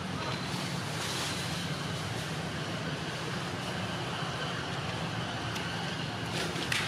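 Steady outdoor background noise: a low drone under an even hiss, with a brief sharp sound near the end.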